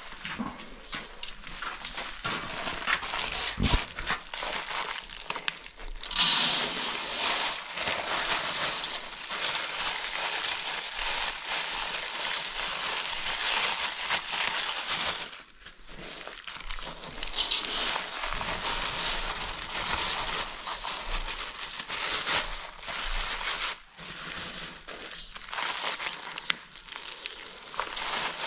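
Dry rice grains pouring from plastic bags into a large aluminium basin of water, with the bags crinkling in the hands. A steady hiss that starts about six seconds in and breaks off briefly twice.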